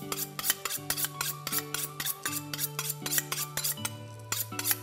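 Background music with a steady, quick percussive beat over sustained bass notes that change pitch every second or so.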